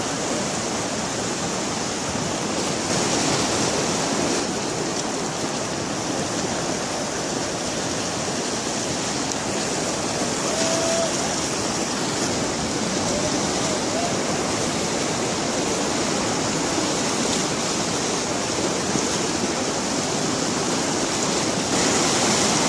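Muddy flash-flood water from a wadi in spate, rushing and churning across the road in a steady, loud rush.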